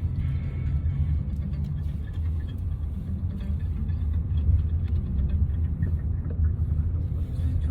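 Car in motion heard from inside the cabin: a steady low road and engine rumble.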